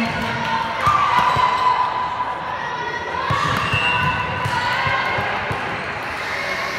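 Players' voices calling out in a gymnasium while a volleyball is bounced on the hardwood floor, a run of short thuds, as the next serve is readied.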